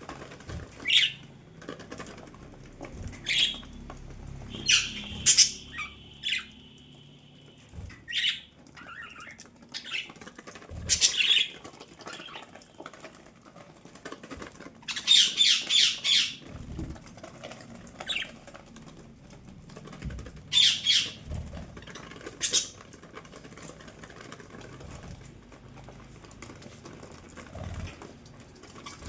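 Budgerigars calling: short, shrill squawks and chirps every few seconds, with a quick run of several calls about halfway through. One call about five seconds in is held as a steady whistle for around two seconds.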